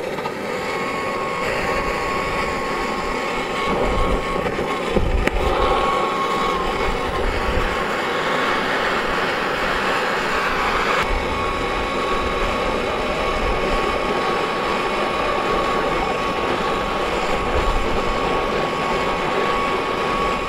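Hose-fed oxy-fuel gas torch burning with a steady hiss and a thin, steady whistle. About eleven seconds in, the hiss turns duller.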